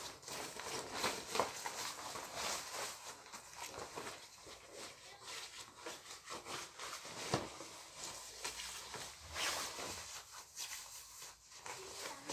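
Irregular rustling, shuffling and light knocks of someone moving about and handling things, with a louder rustle about two-thirds of the way through.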